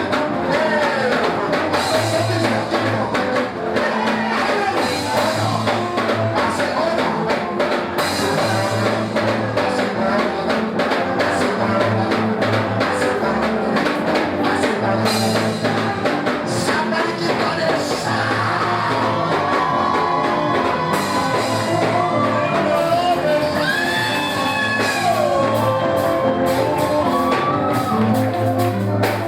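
Live gospel praise music: a band with drum kit and guitar playing a steady beat while a voice sings the melody.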